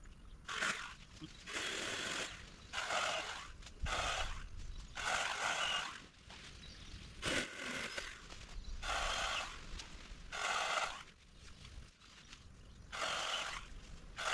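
Manual pole saw cutting through a tree limb: rasping saw strokes about one a second, with a couple of short pauses.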